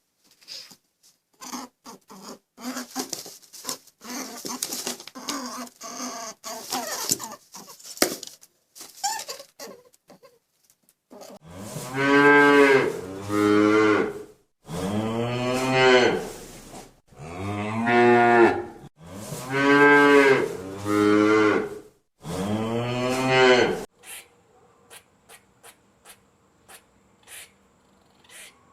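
Cattle mooing: a series of about six loud, drawn-out moos, each rising and falling in pitch, in the middle of the stretch. Before them comes a run of short, scratchy sounds whose source is not clear.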